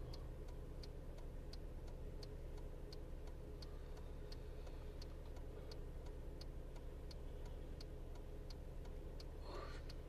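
Car turn-signal indicator ticking steadily, about three ticks every two seconds, over the low steady hum of the car idling at a standstill, heard inside the cabin.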